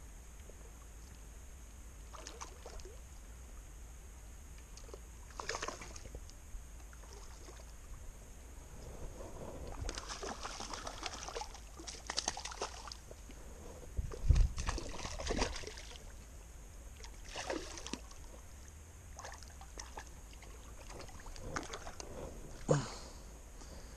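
Hooked trout splashing and thrashing at the surface close to the shore as it is played on a spinning rod, in irregular bursts, the loudest around the middle.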